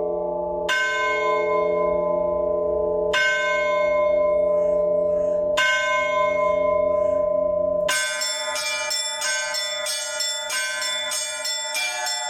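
Orthodox church bells rung by hand. A large bell is struck slowly, three strokes about two and a half seconds apart, each ringing on. About eight seconds in the smaller bells join in a fast, rhythmic peal.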